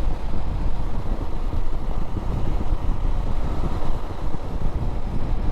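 Vehicle driving along at steady speed: continuous engine and road rumble, with some wind noise on the microphone.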